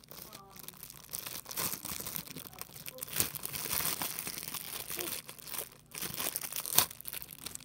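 Plastic makeup packaging crinkling and tearing as it is unwrapped by hand, a continuous crackle with sharp snaps, loudest about three seconds in and again near the end.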